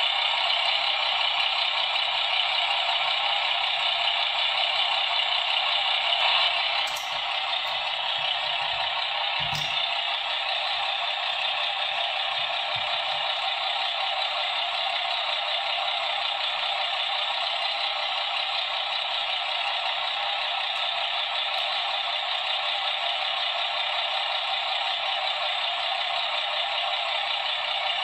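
Simulated truck engine running, played by the sound module through the Star 266 model's small loudspeaker, thin and tinny with no bass. It runs steadily, dips slightly about a quarter of the way in, and two light clicks come soon after.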